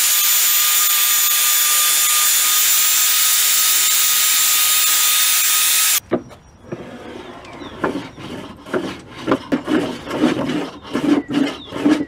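A Makita belt sander runs steadily on a wooden bench top, giving a high whine over a hiss, and cuts off abruptly about six seconds in. Then a hand plane shaves the bench top in a run of repeated scraping strokes.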